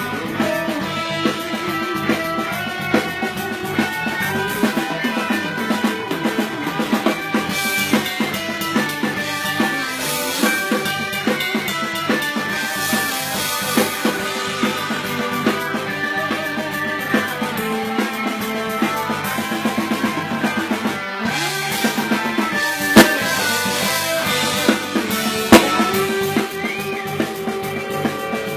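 Live rock band playing: electric guitars over bass and a drum kit, with two loud sharp drum hits about two seconds apart near the end.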